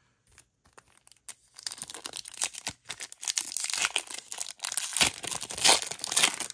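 A foil-wrapped Pokémon booster pack being torn open and its wrapper crinkling, starting about a second and a half in.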